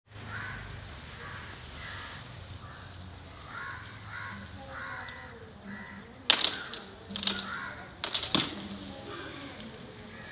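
An elephant breaking and thrashing palm fronds with its trunk: a few loud cracks and leafy swishes between about six and eight and a half seconds in. Repeated bird calls run through the background.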